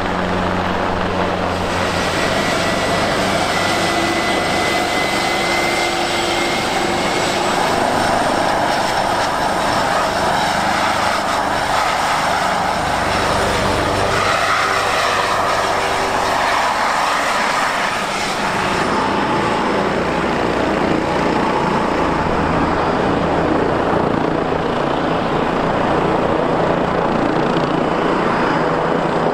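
Turbine helicopters running at close range: rotor noise with a steady high turbine whine. The sound changes twice as the aircraft and distance change.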